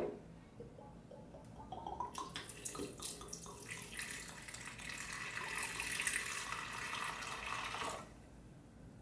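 Light rum poured from a bottle into the empty plastic Blendtec blender jar, splashing onto the jar's bottom; the pour starts about two seconds in and stops sharply about a second before the end. A short knock comes right at the start.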